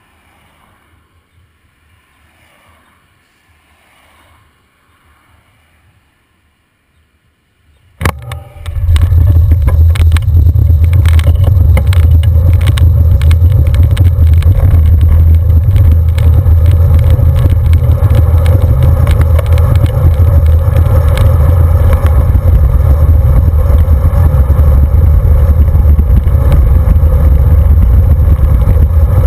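Faint for about the first eight seconds, then suddenly loud: wind buffeting the microphone of a handlebar-mounted camera on a moving road bicycle, a heavy steady low rumble with many sharp knocks and rattles from the bike over the asphalt.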